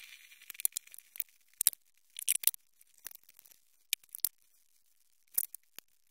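Scattered light clicks, clinks and brief scrapes of hands and tools at work around the engine's cylinder head, with a few short rustles, the sharpest click about one and a half seconds in.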